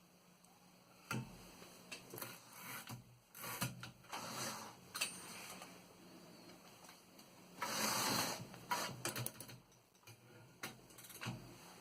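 1927 Smith Premier model 60 typewriter's mechanism clacking and clicking irregularly as it is worked, with a longer rasping burst of mechanical noise about two-thirds of the way in.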